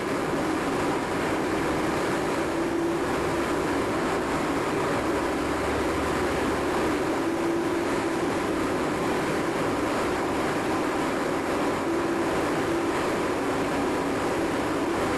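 CNC knee mill running through a rigid tapping cycle in 6061 aluminum: a steady machine noise with a low hum that swells briefly every few seconds.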